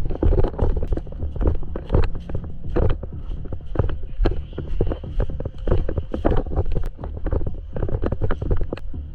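A rapid, irregular run of sharp clicks and knocks, several a second, over a steady low rumble.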